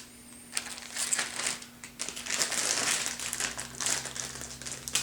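Adhesive tape crinkling and crackling in irregular bursts as it is handled and removed laptop screws of the same size are stuck together on it.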